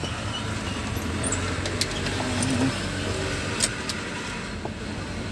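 Steady low hum and hiss from a powered-on amplifier setup, with a few sharp clicks as its front-panel knobs are handled.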